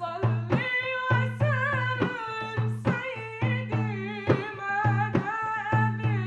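A singer performing an Arabic devotional song with an ornamented melody that bends and wavers in pitch. Behind the voice are regular drum strokes and a steady low bass drone.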